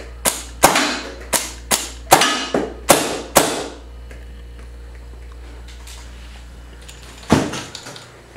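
A paintball marker firing rubber reballs: a rapid string of about nine shots, two to three a second, each a sharp crack with a short echo, then one more shot near the end followed by a few light clicks.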